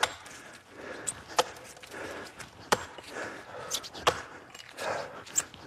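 Axe chopping into a standing tree trunk, four sharp blows about one every second and a half, cutting the felling notch.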